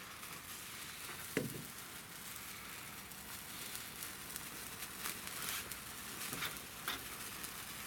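Phantom Fireworks neon sparkler burning in the hand with a faint, steady fizzing crackle, broken by a few sharper pops of sparks.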